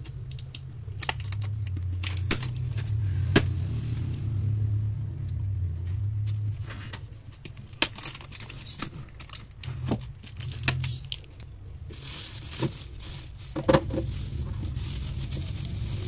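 Handling of a new refrigerator's interior: shipping tape being peeled off and plastic fittings clicking and knocking, over a low hum in the first half. Plastic bubble wrap crinkles near the end.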